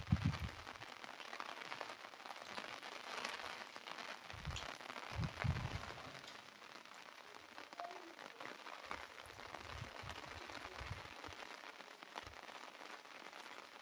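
Steady rain falling, a dense hiss of many small drops. It is broken by low thumps at times, loudest about five seconds in.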